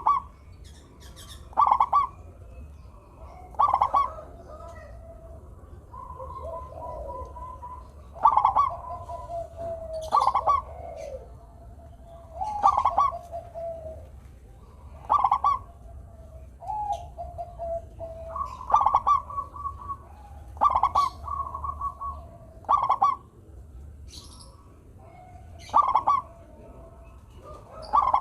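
Zebra dove cooing: short, loud staccato coo phrases about every two seconds, with softer, lower drawn-out cooing between them.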